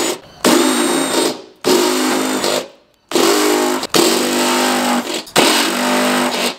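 Makita 18V cordless drill spinning a stepped drill bit through the ute's front guard panel, run in about five short bursts of roughly a second each, stopping and restarting between them.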